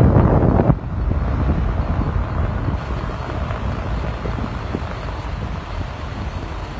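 Low rumble of a car driving through city traffic, with wind buffeting the microphone. The wind noise is loud for the first second and drops off suddenly, leaving a steady, slowly fading road rumble.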